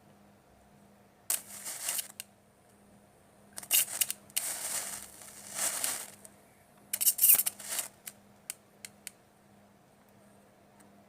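Crackling, sizzling bursts of sparks from a homemade 12 V battery welder striking an arc on metal: several bursts of a second or two each, then a few sharp single snaps near the end.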